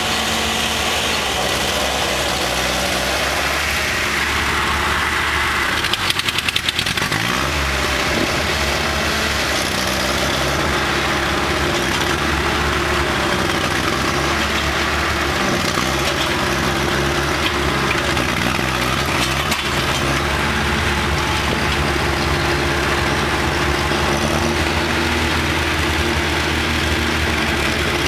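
Engine running steadily at a constant speed, with a brief surge and change in pitch about six seconds in.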